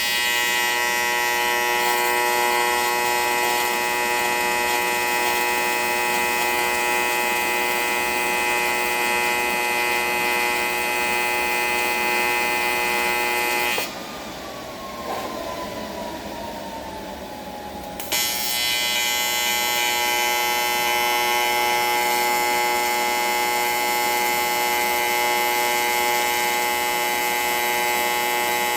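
AC TIG welding arc on aluminium, a steady electric buzz. It burns for about fourteen seconds, stops for about four, then is struck again and burns steadily.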